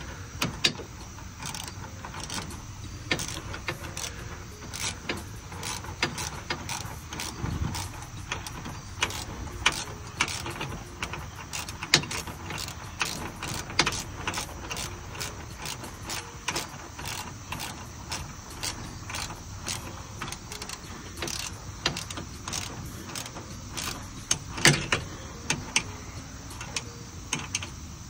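Hand tools working on metal truck parts: sharp, irregular clicks and clinks, a few a second, as bolts are driven back in, with one louder clack near the end.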